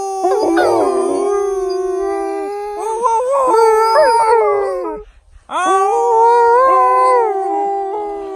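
Two Alaskan malamutes howling together: long, drawn-out howls at overlapping pitches that glide up and down. The howls break off briefly about five seconds in, then start again.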